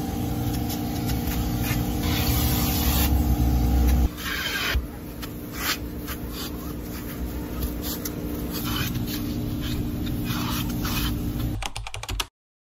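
Car wash vacuum running with a steady motor hum while its hose nozzle rubs and scrapes over car seat upholstery and floor carpet. The sound changes about four seconds in and cuts off suddenly near the end.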